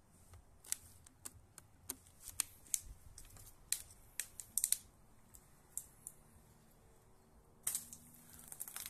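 Scattered light clicks and ticks, then about three-quarters of the way in a sudden burst of hissing spray with crackling, as the vinegar-and-baking-soda bottle rocket blows out its rubber-ball stopper under carbon dioxide pressure and jets vinegar foam out on liftoff.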